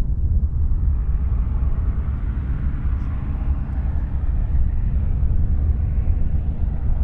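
Light piston-engine airplane running steadily, its engine and propeller noise filling in about a second in.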